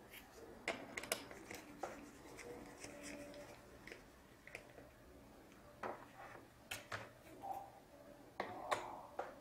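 Faint, scattered clicks and light taps of gloved hands handling laptop internals as an M.2 SSD is unseated from its slot on the motherboard and lifted out.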